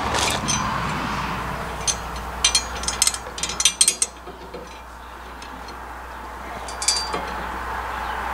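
Small bolts and washers clinking against a steel hitch light bracket as they are fitted by hand: a quick run of sharp metal clicks about two to four seconds in, and a few more near the end.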